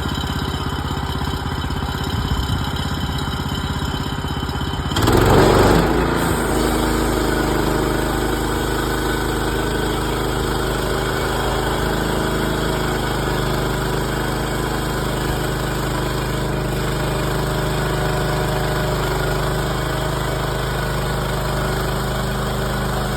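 Portable sawmill's gas engine running steadily. About five seconds in there is a loud, brief surge, after which the engine's note changes and runs on evenly.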